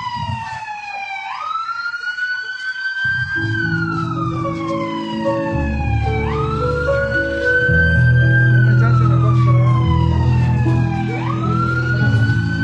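A siren wailing in slow cycles. About every five seconds it sweeps quickly up, holds, then slides slowly down, three rises in all. Music with sustained low notes plays underneath and swells midway.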